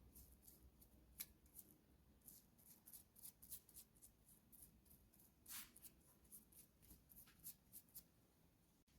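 Faint, irregular short scratching strokes, high-pitched, the loudest about five and a half seconds in.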